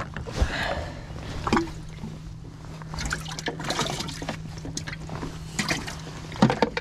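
Water splashing and trickling, with scattered knocks and a steady low hum underneath.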